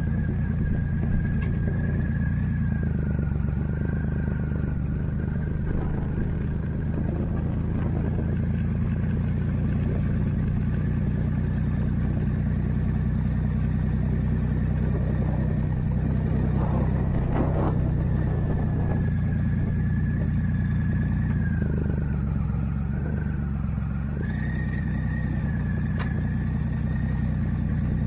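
Motorcycle engine running steadily at low road speed, heard from the rider's seat, with a thin high whine that dips and rises in pitch.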